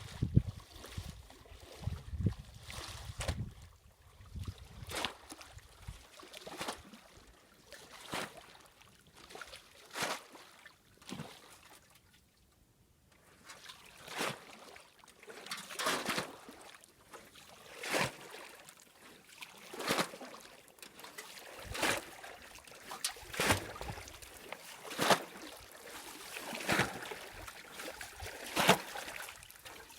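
Water splashing and sloshing in a steady rhythm, about one splash every two seconds, over a faint trickle.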